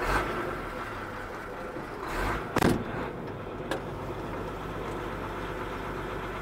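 Truck engine idling steadily just after starting, with a short loud burst about two and a half seconds in and a small click about a second later.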